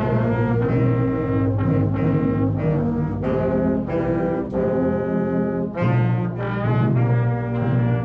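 Student concert band playing in full, with brass (trumpets, baritone horns, trombones) and saxophones sounding together in chords that change about every second.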